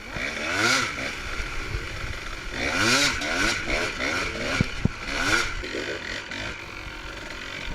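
Dirt bike engine revving, its pitch rising and falling several times as the throttle is worked, with a few short bursts of hiss.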